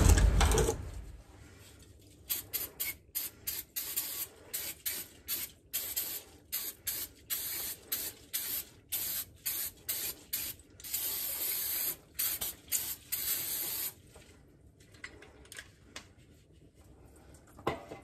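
Background music fades out in the first second. Then an aerosol spray can hisses in many short squirts, followed by two longer sprays that stop about fourteen seconds in, as cleaner is sprayed into an emptied differential housing.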